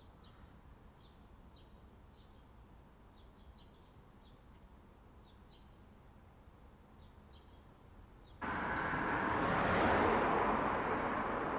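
Small birds chirping faintly, a short chirp every second or so. About eight seconds in, loud street traffic comes in abruptly: a car passes close by, its tyre and engine noise swelling and then easing.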